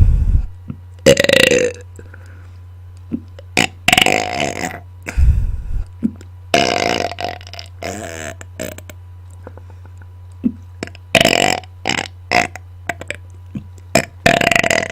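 A person belching loudly on command, about eight long burps with pauses between them, some deep and rumbling. A steady low hum lies underneath.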